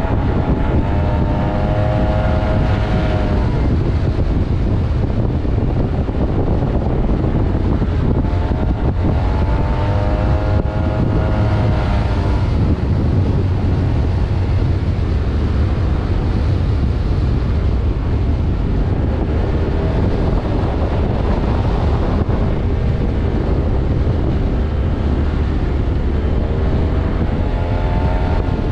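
Motorcycle riding at speed under heavy, steady wind rush on the microphone. The engine's note climbs and levels off three times: near the start, about a third of the way in, and near the end.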